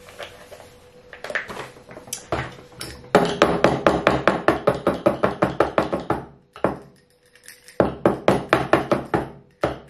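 Glass swing-top jar packed with lemon, ginger and sugar knocked rapidly on a wooden table, about seven sharp knocks a second in two runs, the second starting near the end after a short pause.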